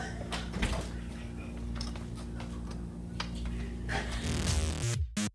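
A steady low mechanical hum of room tone, with a few light clicks and knocks as a door is opened and shut when someone walks out.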